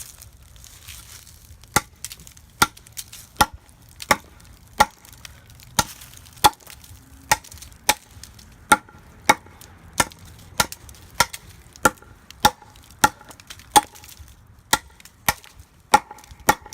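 A 4140-steel RMJ Tactical Little Bird tomahawk chopping: about twenty sharp blows in a steady rhythm, roughly one every two-thirds of a second, starting about two seconds in. Each blow has a brief ring.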